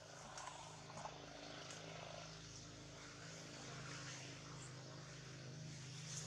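A faint, steady low mechanical drone, like a distant motor running, with a few small clicks in the first second.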